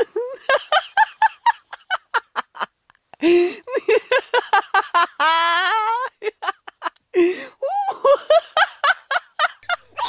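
Laughter in fits of rapid, high-pitched cackles, about five a second, with a long drawn-out squeal in the middle.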